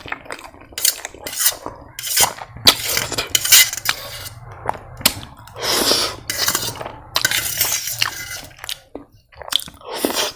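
Cutlery clinking and scraping against a bowl of ramen noodles, mixed with close-up eating noises, in irregular bursts.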